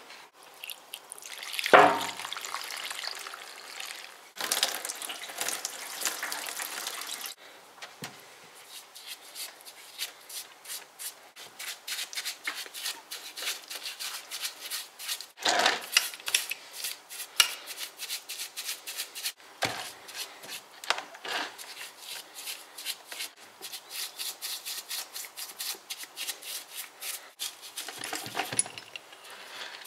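Synthetic thinner poured into a plastic tub over a hydraulic bottle jack: a splash about two seconds in, then a steady pour for about three seconds. After that a paintbrush scrubs the jack in the thinner in quick repeated strokes, a first degreasing wash.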